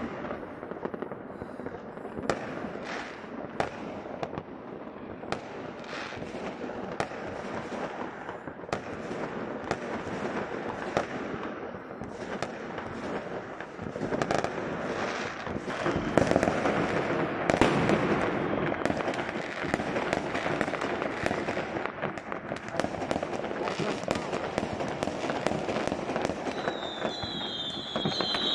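Fireworks going off all around: a steady run of bangs and crackling from aerial shells, thickening into a dense rumble of overlapping explosions about halfway through. Near the end, a high warbling whistle joins in as whistling rockets climb.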